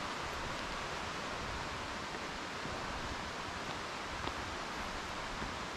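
Steady rushing of flowing water from a creek, an even hiss with no change in level.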